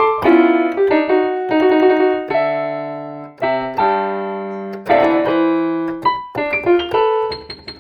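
Piano-style keyboard music: a tune of struck chords and melody notes, each ringing out and fading before the next.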